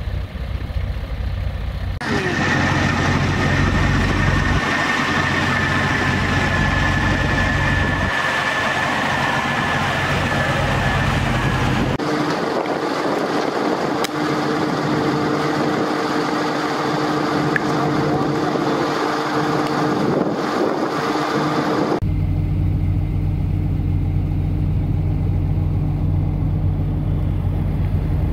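Heavy trucks' diesel engines idling and running, in a series of cut clips. A low engine rumble opens and closes the window. In between comes a louder, noisier stretch with a steady high whine for about ten seconds, then a steady hum with two lower tones.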